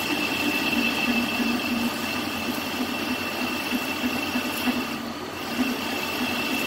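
Metal lathe running with the cutting tool rubbing on the spinning workpiece instead of cutting cleanly, which gives a steady high-pitched tone over the machine noise. The tone fades out briefly about five seconds in and then returns.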